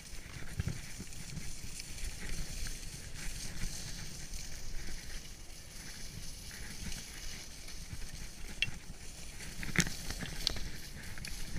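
Fischer skis sliding down packed snow: a steady hiss of the bases and edges on the snow, with a low rumble of wind on the microphone. A few sharp clicks near the end.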